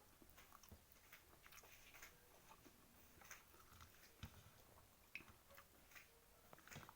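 Faint chewing: a person eating with soft, irregular wet mouth clicks and smacks.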